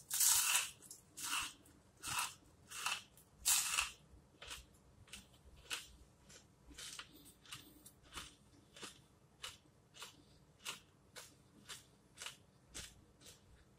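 Close-up crunching of potato chips being chewed with the mouth closed: loud crunches over the first few seconds, then steady softer chews a little under two a second.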